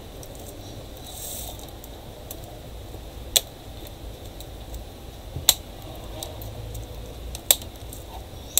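Sharp plastic clicks, about one every two seconds, as a Dell Inspiron 15R-5521 laptop keyboard is pressed and worked into its palmrest with tweezers, its edge snapping into place, over a low room hum.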